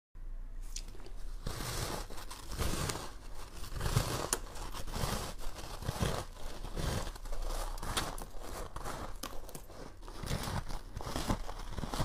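Bites into a block of frost ice: a run of irregular crisp crunches and crackles as chunks of frost break off and are chewed.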